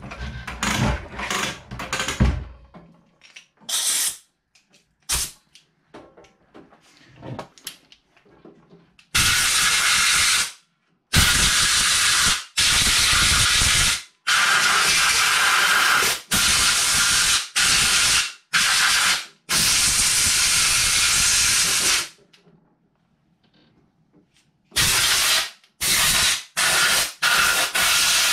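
Compressed-air blow gun on an air compressor hose, blasting dust and dirt off a pistol in bursts. Clicks and clatter of the hose fitting being handled come first. Then a long run of loud hissing blasts with brief breaks fills the middle, after a quiet spell, several shorter blasts follow near the end.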